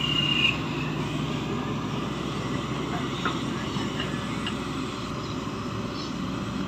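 Shantui crawler excavator's diesel engine running steadily under hydraulic load as the boom swings and the bucket lowers into wet mud.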